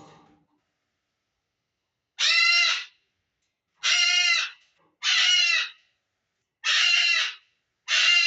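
Pet bird screaming: five loud, harsh, identical screams, each under a second, starting about two seconds in and repeating every second or so. The bird is agitated after its owner screamed in pain.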